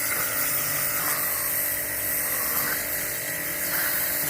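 Small high-speed power tool running with a steady whine, cleaning an engine cylinder head.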